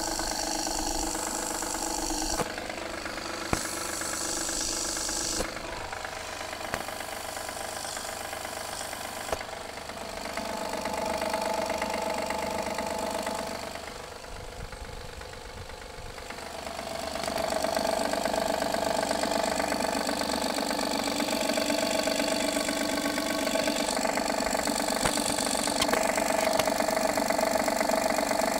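Honda J30A9 V6 idling cold with a repetitive knock, picked up by a lavalier microphone held close to the engine; the sound dips in the middle and grows louder in the second half. The owner traces this cold-start knock to a failing timing belt tensioner.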